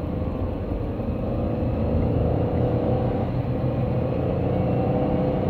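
Steady rumble of engine and road noise heard from inside a moving car's cabin.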